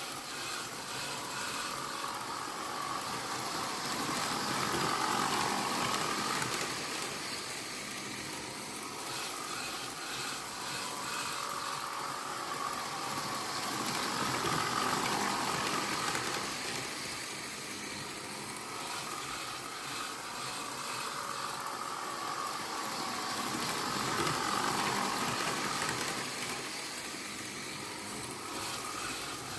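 OO gauge model trains running around the layout's loops: a steady whirr of small motors and wheels on rail that swells about every ten seconds as a train passes close by.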